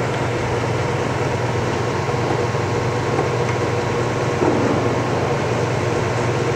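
Steady hum of a 1997 Harrison M550GH engine lathe's drive, left running with the spindle braked to a stop while the speed is being changed.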